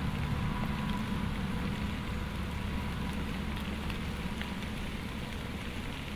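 Thunderstorm: steady rain with a low rolling rumble of thunder that slowly dies down.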